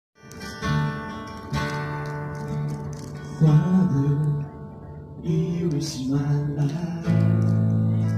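A Christian song starts up after a brief silence: strummed acoustic guitar, with a voice singing over it.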